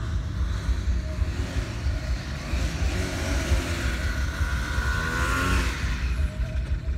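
Paramotor engine and propeller running as the pilot comes in to land, under a heavy low rumble. A whine rises for about a second and a half and stops a little before the end.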